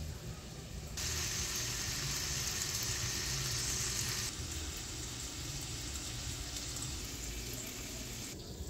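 Sliced sausage sizzling in oil in a cast-iron skillet, a steady frying hiss. It starts suddenly about a second in, drops in level a few seconds later, and stops shortly before the end.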